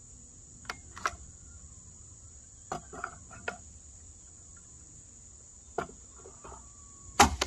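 A steady high-pitched insect drone runs throughout, broken by scattered clicks and knocks as a 5-round magazine for a GForce GF99 12-gauge shotgun is handled and fitted into the magazine well. Near the end comes a sharp, louder knock as the magazine is tapped in.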